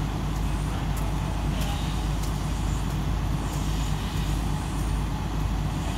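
Diesel engine of a crawler crane running steadily, a low even drone, with a few faint clicks over it.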